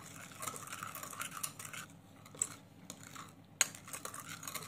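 Metal spoon stirring yeast, sugar and salt into warm water in a ceramic bowl, with light scraping and small clinks against the bowl. A sharper clink comes about three and a half seconds in.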